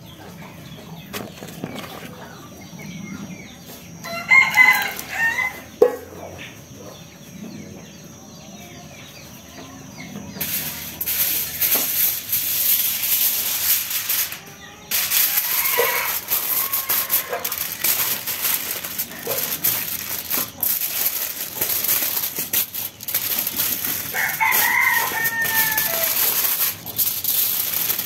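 A rooster crowing twice, once a few seconds in and again near the end. From about ten seconds in, aluminium foil crinkling and rustling loudly as fish is wrapped in it.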